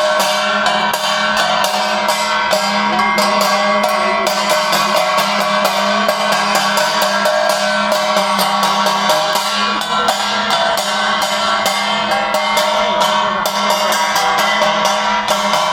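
Devotional arati music: fast, steady drumming at about five strokes a second, with sustained ringing tones over it, loud throughout.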